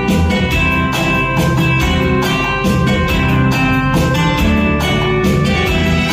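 Instrumental interlude of a Hindi film song accompaniment, with guitar over a steady beat and no singing.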